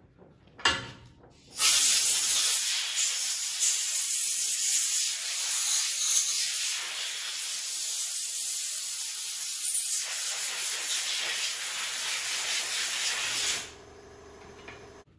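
A pressurized spray hissing steadily for about twelve seconds, starting suddenly about a second and a half in and cutting off near the end, as the carburetor's jets are cleaned. A brief knock comes just before the hiss starts.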